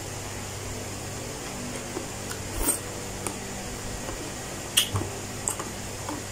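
Eating sounds: chewing, with a few sharp clicks of a spoon against a plastic food container, the loudest nearly five seconds in, over a steady low hum.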